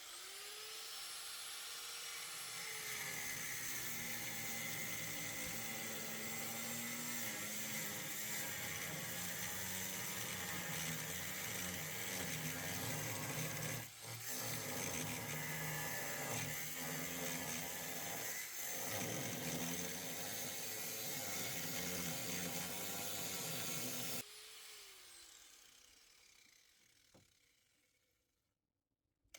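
Power saw cutting the rusted sheet-metal rocker panel of a Ford F250 Super Duty. It runs steadily with a brief dip about halfway through, then stops abruptly, and what remains fades away.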